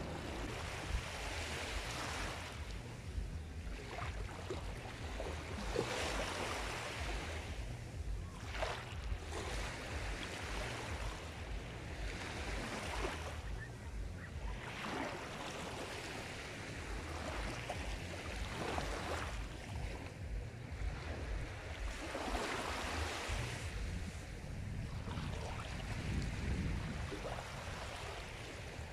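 Sea surf: waves breaking and washing in one after another, swelling and falling back every few seconds over a steady low rumble.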